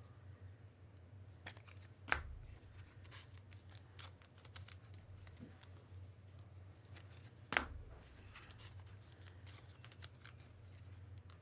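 Trading cards being slid into rigid plastic top loaders: light scrapes and small clicks of card and plastic being handled, with two sharper taps about two seconds in and again near eight seconds, over a low steady hum.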